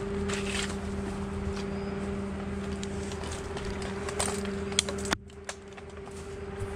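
A steady engine hum runs on, with a few sharp metallic clicks from rope-climbing hardware as a climber hauls up a climbing rope. The hum drops away abruptly about five seconds in.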